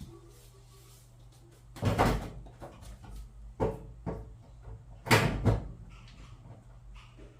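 Clunks and scraping knocks from the GE front-load washing machine being handled as it is put back together and back in place: four loud ones about two, three and a half, four and five seconds in, the last and loudest lasting about half a second.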